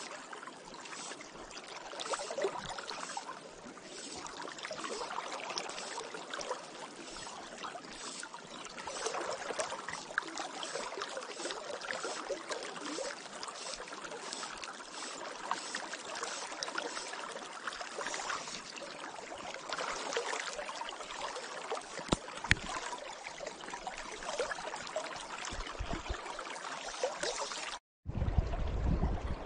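River current flowing and gurgling, a steady rush of water with small splashes. Near the end the sound cuts out for a moment, then a low rumble comes in.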